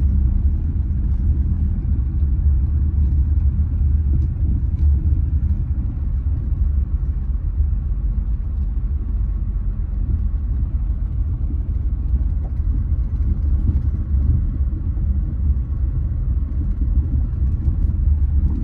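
Steady low rumble of a car driving, its road and engine noise holding an even level throughout.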